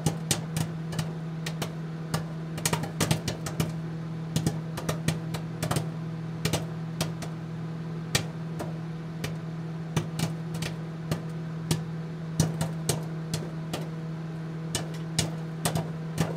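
Old-TV static sound effect: a steady low electrical hum with irregular crackling clicks, a few a second.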